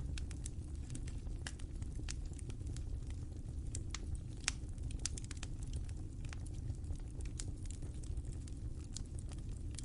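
Fire crackling: a steady low rumble of burning with many sharp, irregular pops and snaps scattered throughout.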